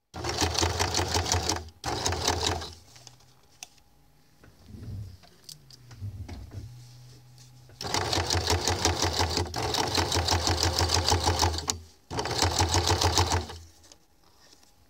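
Electric sewing machine stitching a seam in bursts of fast, even stitches: two short runs at the start, a pause, then a long run of about four seconds and a last shorter run.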